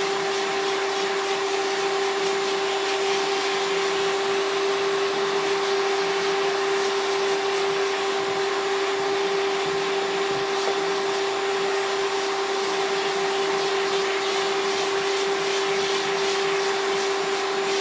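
Vacuum cleaner running steadily with its brush attachment, used to groom a cat's fur: a constant hum over an even rush of air.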